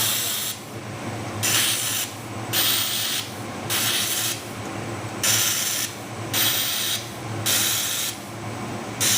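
Laser welding machine working through a battery pack, with a half-second hissing burst about once a second over a steady low hum.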